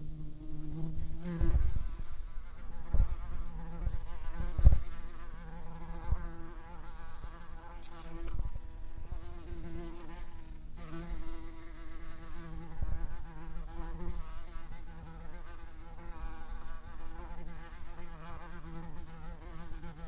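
Yellow jacket wasp buzzing, a continuous wing buzz whose pitch wavers up and down, breaking off briefly about eight and eleven seconds in. A few low thumps come in the first seven seconds, the loudest about four and a half seconds in.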